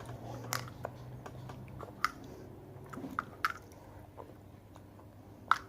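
A few small sharp clicks and taps, spaced a second or more apart, from plastic pacifier-shaped candy containers and sweets being handled.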